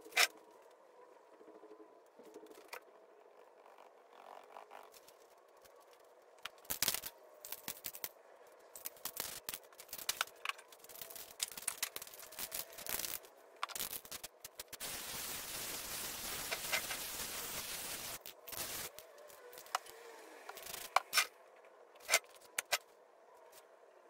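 Scattered sharp clicks and scrapes of spray-paint cans and tools being handled, with a steady hiss lasting about three seconds just past the middle.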